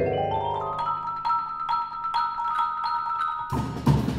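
Percussion ensemble playing. Marimbas and vibraphone climb in a quick rising run of notes, then hold high ringing notes over light, regular ticks. Near the end the full ensemble, drums included, comes back in with a loud hit.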